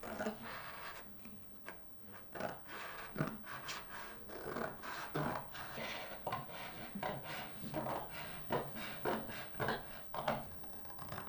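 Pencil and ruler working on a sheet of paper: a run of short, irregular rubbing and scraping strokes as measurements are marked out.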